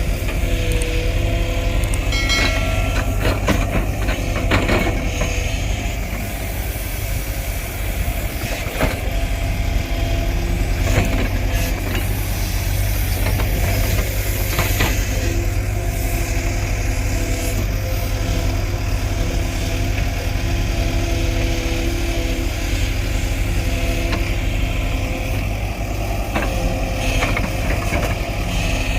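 Heavy construction machine's diesel engine running steadily, with a few short knocks.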